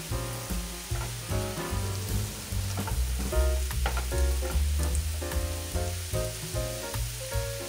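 Diced potatoes sizzling as they brown in sunflower oil in a non-stick frying pan, with a spatula scraping and clicking against the pan as they are turned. Background music with bass notes plays underneath.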